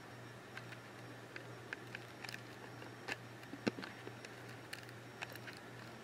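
Faint steady low hum with scattered soft clicks and ticks, one sharper click a little past the middle.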